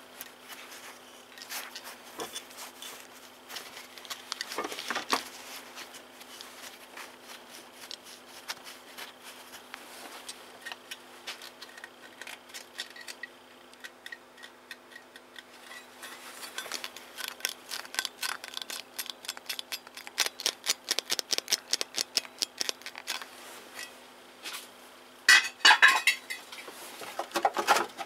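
Metal hand tools and bolts clinking and clicking against each other and the engine, over a steady hum. A run of rapid clicks fills the middle, and a few louder clanks come near the end.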